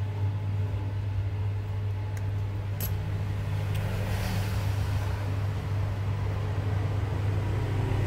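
Steady low background hum with a light click about two seconds in and another a little before three seconds.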